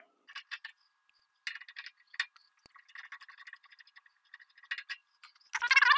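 Small metal clinks, ticks and rattles from the stock steel feed handles being worked loose from a drill press hub with a screwdriver, with a louder burst of metal scraping just before the end.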